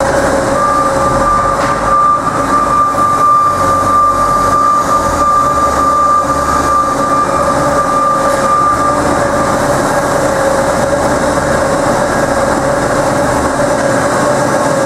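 Ultra T-1500L trommel screen running: a loud, steady mechanical noise with a continuous whine, and a second, higher whine that stops about two-thirds of the way through.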